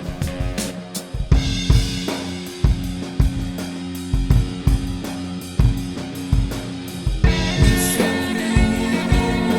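Background music with a steady drum-kit beat, kick and snare, growing fuller about seven seconds in.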